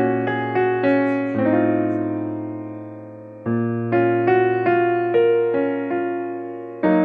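Background piano music: gentle phrases of struck notes, with one phrase dying away before the next begins about three and a half seconds in.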